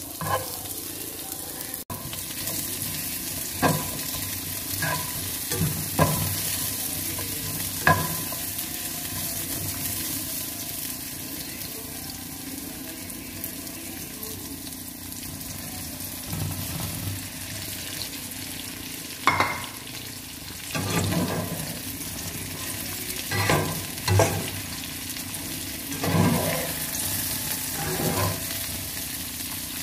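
Sliced onions and bird's eye chillies sizzling in hot oil in a wok, a steady hiss with occasional knocks and scrapes of a spatula stirring them. In the second half there is a cluster of louder clatters as sliced sausages go into the pan and are stirred.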